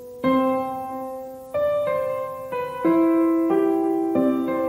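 Background piano music: a slow, gentle melody of single notes and chords, each struck and left to ring as it fades.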